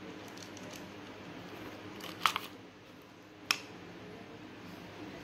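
Light clicks of a small plastic jar and its lid being handled: a quick pair a little after two seconds in and one sharp click about a second later, over a faint steady hum.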